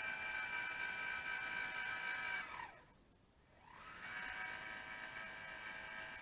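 Celestron Astro Fi 130 computerized mount's slewing motors whining as the telescope moves: a steady high whine that falls in pitch and stops about two and a half seconds in, then starts up again about a second later and begins winding down at the very end.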